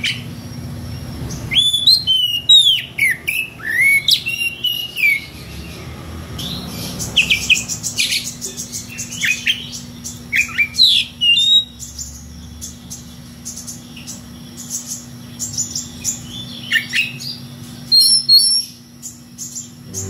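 Oriental magpie-robin (kacer) singing loudly in bursts of rapid, sweeping whistled notes and varied unusual phrases, broken by short pauses. It is the bird's challenge song, calling out to a rival. A faint steady hum runs underneath.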